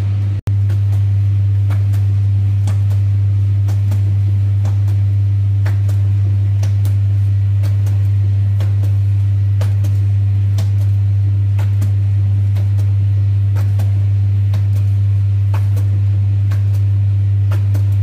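A steady, loud low hum from a machine, with scattered light clicks and taps over it.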